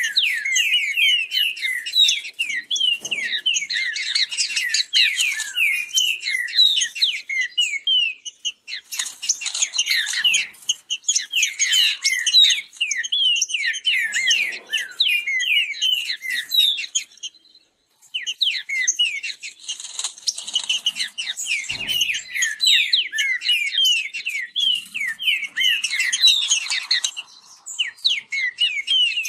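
Green-winged saltators (trinca-ferro) singing the fast contest song, a dense run of quick whistled notes that overlap as the caged birds sing against each other, breaking off briefly about 18 seconds in.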